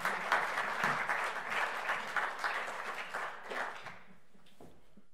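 Audience applauding at the end of a lecture, the clapping thinning out and dying away about four seconds in, with a last clap or two after.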